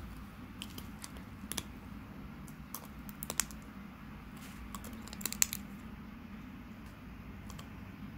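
Bosc monitor crunching the shell of a giant African land snail in its jaws: irregular sharp cracks and clicks, loudest about three and a half and five and a half seconds in, over a low steady hum.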